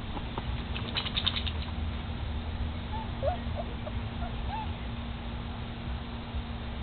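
Five-week-old German Shorthaired Pointer puppies at play. There is a quick run of small clicks about a second in, then a few faint, short puppy squeaks and whimpers.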